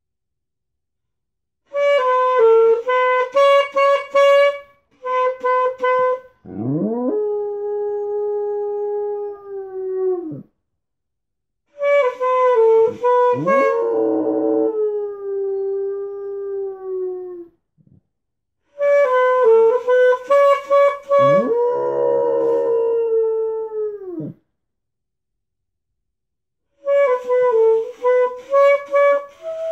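A saxophone plays four short phrases of quick repeated notes, and between them a dog howls along three times: each howl slides up, holds one long note for several seconds and falls away at the end.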